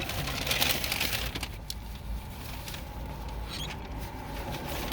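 Steady low rumble of a moving car heard from inside the cabin, with faint light scratching and tapping over it in the first couple of seconds.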